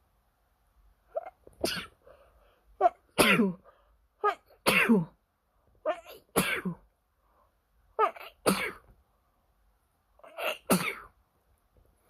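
A person sneezing six times in a row, about every one and a half to two seconds. Each sneeze is a short catch of breath followed by a loud, sharp burst. It is a sneezing fit from an itchy nose.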